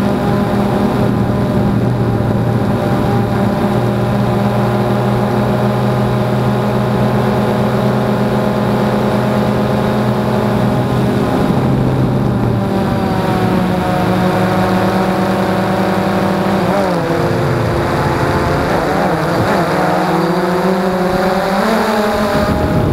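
DJI Phantom 2 quadcopter's motors and propellers whining steadily in flight, heard close up from the camera mounted on the drone. From about halfway through, the pitch dips and rises several times as the motors change speed while the drone manoeuvres.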